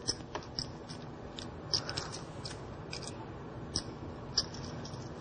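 Poker chips clicking as a player handles his chip stack: short, sharp, irregularly spaced clicks over quiet room tone.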